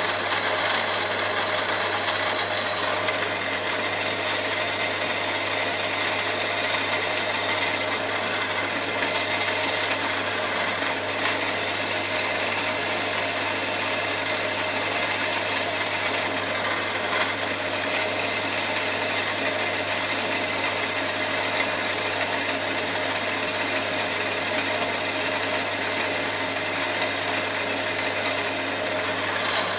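Milling machine spindle running steadily while a small drill bit bores bolt holes into a solid aluminium block: a constant motor hum with a few fixed whining tones.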